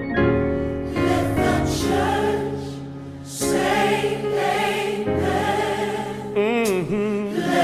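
Gospel choir singing over sustained organ and keyboard chords, with a lead voice running a wavering melisma near the end.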